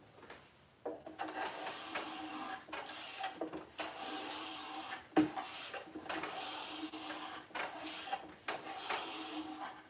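Hand plane cutting along the edge of a wooden drawer side, a series of rasping strokes each a second or two long, taking light shavings to fit a drawer that is still a little tight in its opening.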